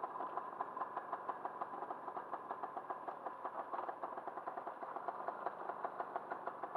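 Motorcycle engine running steadily while riding, with an even, rapid pulsing beat.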